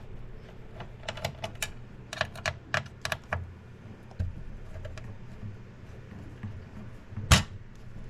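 Small sharp clicks and taps of a screwdriver and screws being worked on a 3D printer's power supply mount, with a quick run of them in the first few seconds. One louder knock comes near the end.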